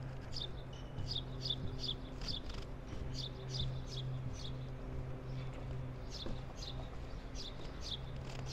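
A small bird calling: runs of short, high chirps, each sliding downward, several a second with brief pauses between runs. A steady low hum lies under it.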